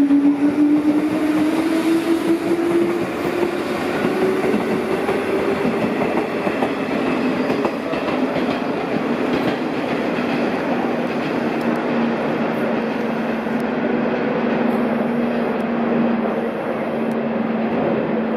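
JR West 201 series electric train pulling away, its motors giving a rising whine over the clickety-clack of the wheels on the rail joints. Later comes a steadier hum as a 201 series train runs along the tracks.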